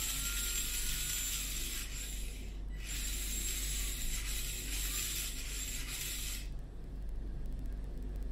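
Small electric motor and gears of a Kyosho Mini-Z Overland chassis spinning with the throttle held, as a high-pitched hissing whir. It comes in two runs of about three and a half seconds each, with a short break around three seconds in.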